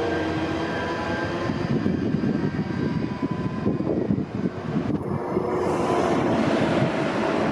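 Indian Railways express train passing on the track: a steady mechanical whine, then a quick run of wheel knocks over the rails for a few seconds, giving way to a broad rushing noise near the end.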